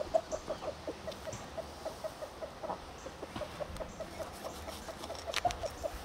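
Chickens clucking in a quick, steady run of short calls, about five a second, with a couple of light clicks about five seconds in.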